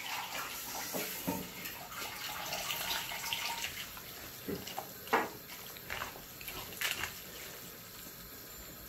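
Water running from a kitchen tap for the first few seconds, then a few short knocks.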